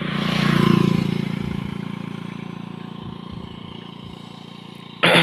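Motorcycle engine running steadily at idle: loudest about a second in, then settling to a lower, even running. A short, loud burst of noise comes near the end.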